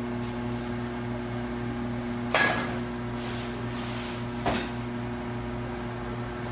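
Two sharp knocks of a butcher's knife chopping beef on a wooden block, about two seconds apart, the first the louder, over a steady hum.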